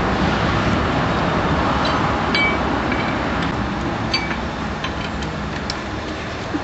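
Steady hiss and hum of a petrol-station air pump as a car tyre is inflated through its hose, with a few light clicks and two short high beeps.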